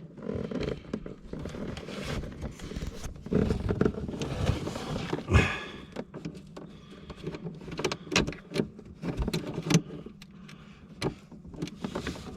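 Handling noises of hands at work among parts and wiring: irregular rustling and scraping with sharp clicks and knocks, the loudest knock about five and a half seconds in and a quick run of clicks from about eight to ten seconds.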